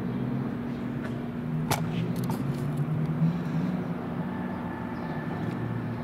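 Road traffic: a car engine passing on a town street, with a steady low hum underneath and one sharp click a little under two seconds in.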